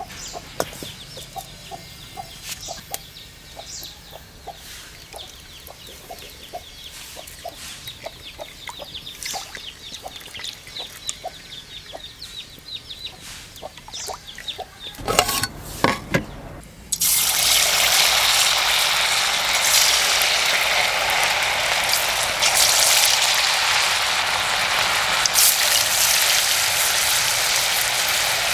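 Soft, even ticking for about fifteen seconds and a few knocks, then a loud, steady sizzle starts suddenly about seventeen seconds in: chicken pieces frying in hot oil.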